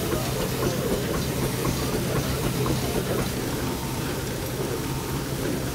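A threshing set running steadily: a 1948 Ransomes threshing machine belt-driven by a 1906 steam engine, giving a steady low hum with a continuous mechanical rattle.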